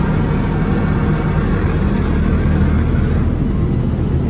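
Laserwash 4000 touchless car wash machinery running, heard from inside the car: a steady, loud rushing noise with a low hum underneath.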